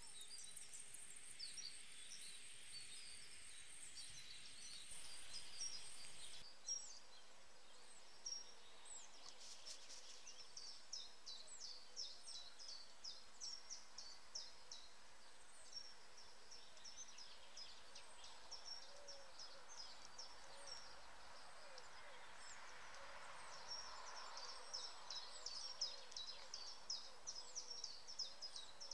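Small songbirds chirping, many short high-pitched calls in quick succession, thickest about a third of the way in and again near the end.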